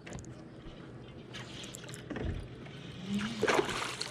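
Water splashing and dripping at the side of a small fishing boat as a hooked largemouth bass is landed, with a louder splashing rush about three and a half seconds in.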